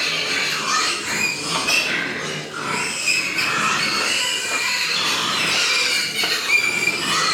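Several pigs squealing and squeaking, with many short high calls overlapping.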